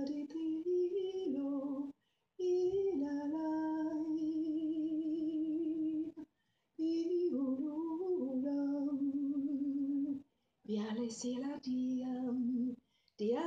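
A woman singing unaccompanied in long held notes, one of them wavering in a slow vibrato, in several phrases broken by short pauses for breath.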